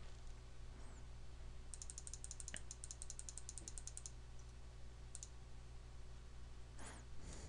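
Computer mouse scroll wheel ticking quickly and evenly, about ten notches a second, for a couple of seconds, then a quick double click of a mouse button, over a steady low electrical hum.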